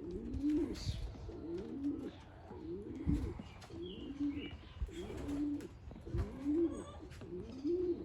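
Racing pigeons cooing: a steady run of low, rising-and-falling coos, about three every two seconds, with a few faint higher chirps among them.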